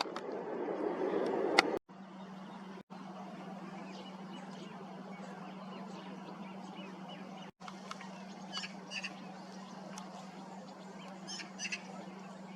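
Short calls of waterbirds on a lake, a few at a time in two bursts, one just past the middle and one near the end, over a steady low hum. The first couple of seconds hold a louder rushing noise that cuts off abruptly.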